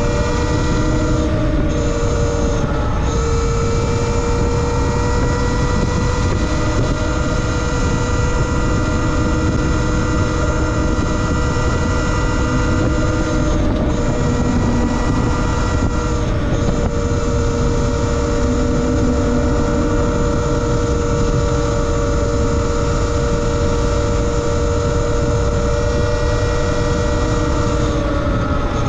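Electric motor of a Talaria Sting R MX4 e-bike whining at a steady cruising speed, the pitch dipping briefly a few times and starting to fall near the end. Heavy wind rumble on the microphone runs underneath.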